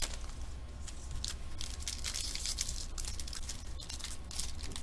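Faint rustling and crinkling of trading-card packaging being handled and torn open, with one sharp click late on, over a steady low hum.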